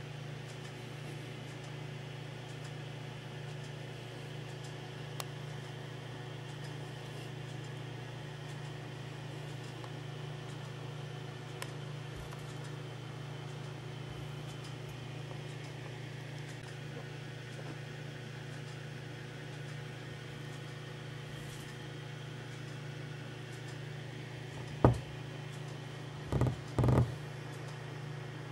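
A steady low hum over a light hiss, with three short thumps near the end, the last two close together.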